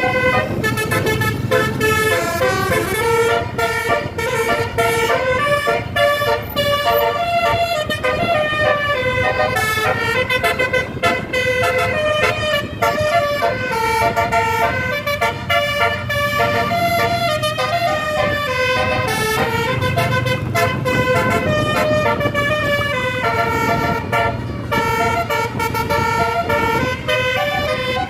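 Bus telolet horn: a bus's set of musical air horns playing a fast tune of stepped notes, over the low running of the bus engine.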